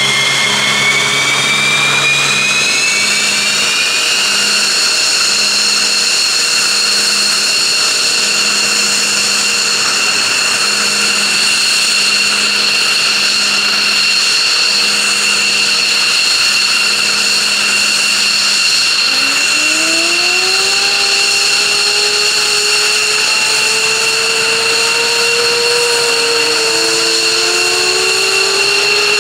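Loud whine of the F-15J's twin Pratt & Whitney F100 turbofans during engine start. The high whine rises in pitch over the first few seconds and then holds steady. About two-thirds of the way through, a lower whine begins rising as another spool-up starts, with a second rising tone near the end.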